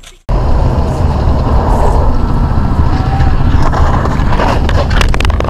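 Loud road and engine rumble of a vehicle on the move, picked up by an onboard camera microphone. It starts abruptly after a brief dropout.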